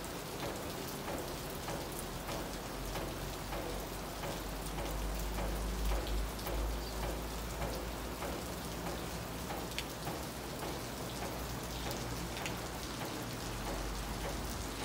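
Steady rain falling on clay-tile roofs and palm trees, a continuous hiss with many single drops ticking close by.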